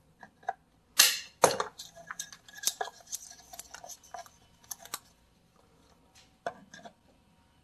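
Aviation snips cutting nylon trimmer line, with a sharp snap about a second in and a second click half a second later, then lighter clicks as the snips and line are handled.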